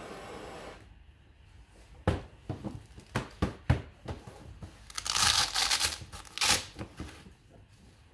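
Gas blowtorch hissing, cutting off about a second in; then a few sharp knocks as the torch canister is stood on the table. The scorched fire-resistant document wallet then crinkles and rustles loudly as it is handled and its flap pulled open.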